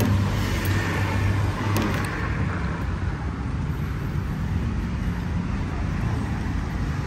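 Steady traffic and vehicle engine noise with a low hum, and a few light clicks.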